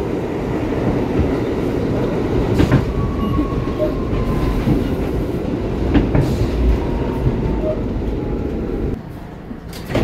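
New York City subway car on the 1 line rumbling along the track, heard from inside the car, with a couple of sharp clicks from the rails and a faint whine falling in pitch as it slows. About nine seconds in the noise drops sharply as the train comes to a stop at a station.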